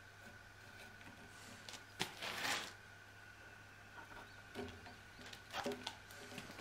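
Hand chisel working a Japanese pine beam at a joint: a sharp tap and a short scraping paring cut about two seconds in, then a few lighter clicks and a brief scrape near the end.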